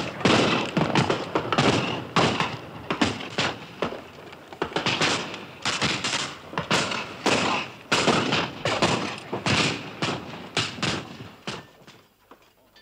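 Flintlock muskets firing in a ragged exchange of shots, about two a second, dying away near the end.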